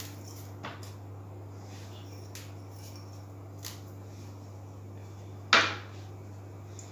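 A glass cup set down on a hard kitchen counter with one sharp knock about five and a half seconds in, ringing briefly. A few faint clicks come before it, over a steady low hum.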